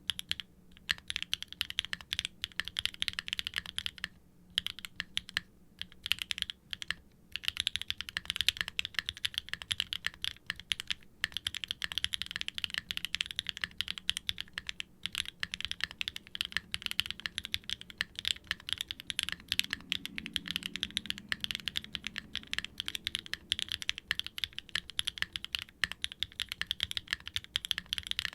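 Continuous typing on a Wilba.tech Salvation mechanical keyboard: Gateron Milky Yellow Pro V3 linear switches (all-POM, factory-lubed) under ABS keycaps, on an FR4 plate in an aluminium case with no dampening. It is a steady rapid stream of keystrokes, with a few short pauses in the first seven seconds.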